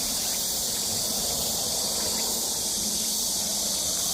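Steady, high-pitched drone of a chorus of summer insects, unbroken throughout.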